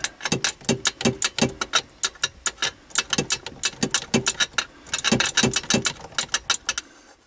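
Ratchet socket wrench clicking rapidly as it tightens the top mounting bolt of a steering-column electric power steering motor. The clicks come in two runs with a short pause about two-thirds through, then stop shortly before the end.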